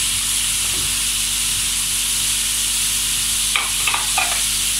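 Chopped cabbage, green capsicum and carrots sizzling steadily in hot oil in a pan as they begin to fry, with a few short knocks of the metal spatula against the pan a little after three and a half seconds in.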